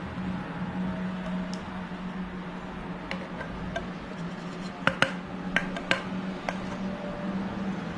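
Chocolate ganache being scraped from a metal pot onto a cake: a few sharp clicks and knocks of a utensil against the pot, clustered around the middle, over a low steady hum.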